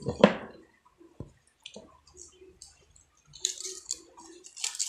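Handling noise from copper wire being hand-wound into a ceiling fan coil: a sharp knock just after the start, scattered small clicks, and a scratchy rustle of wire in the second half.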